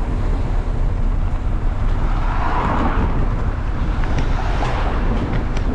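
Steady low wind rumble on the microphone of a camera riding on a moving mountain bike, with a few light clicks and rattles.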